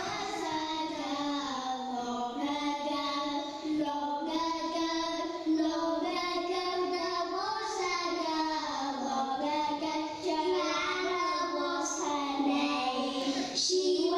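Children singing a song in a simple repeating tune.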